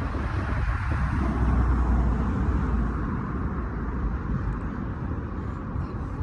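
Steady outdoor city noise: a low rumble with a hiss over it, a little louder for the first couple of seconds, then easing.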